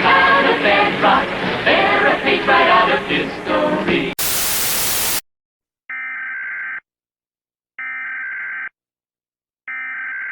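Music with singing cuts off abruptly about four seconds in, giving way to a second of static hiss. Then come three one-second bursts of Emergency Alert System SAME header data tones, the buzzy digital screech that opens an EAS alert, each followed by about a second of silence.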